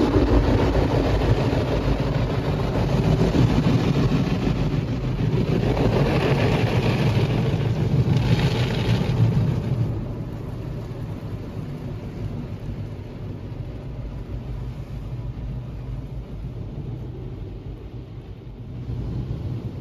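Istobal M'Start rollover car wash working over the car, heard from inside the cabin: water spray and the spinning Carlite brushes washing across the bodywork and glass make a steady, low rushing noise. It is loud for the first half and eases to a quieter wash about ten seconds in.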